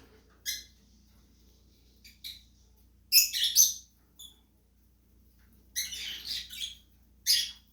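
Cockatiel giving short, harsh, high-pitched chirps and squawks, several in a row, loudest about three seconds in.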